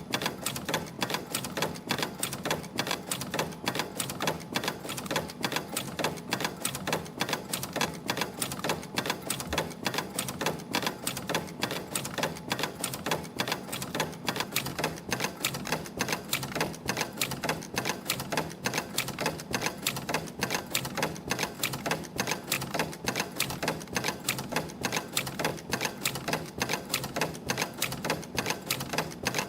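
CNC extension spring machine running in steady production, coiling 0.5 mm wire and forming German hooks: a continuous fast run of sharp, even mechanical clacks from its tooling.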